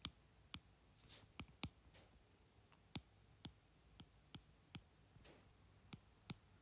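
Stylus tip tapping and sliding on a tablet's glass screen during handwriting: faint, irregular clicks, about two a second, over near silence.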